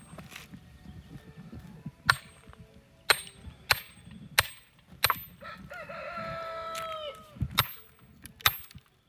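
Firewood being chopped: about seven sharp strikes on wood, a second or less apart. A rooster crows once in the middle, a long held call that drops at the end.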